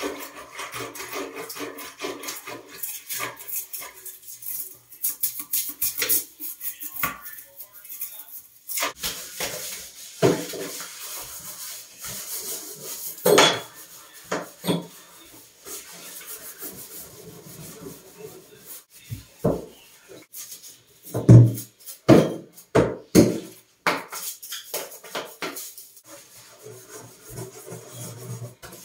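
Bathroom cleaning: a gloved hand wiping in a toilet bowl, then a scrub brush scrubbing a bathtub, an irregular run of rubbing strokes. Scattered knocks and clunks are mixed in, the loudest as a cluster about two-thirds of the way through.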